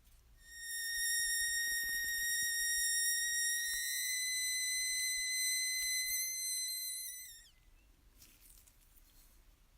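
A small high-speed electric motor whining at a steady high pitch for about seven seconds, creeping slightly higher, then dropping in pitch and stopping as it is switched off.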